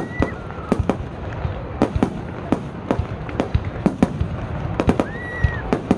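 Aerial fireworks bursting in quick, irregular succession: sharp cracks and bangs several times a second over a continuous rumble, with a brief high whistle about five seconds in.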